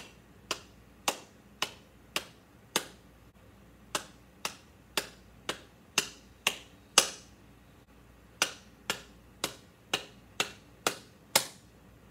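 Hands clapping out the rhythm of a music exercise, about two claps a second. The claps come in phrases broken by short pauses, some louder than others.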